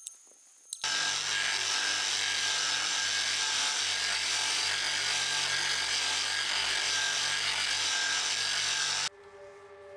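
Angle grinder with a sanding disc running steadily against a steel sword blade, starting about a second in and cutting off shortly before the end.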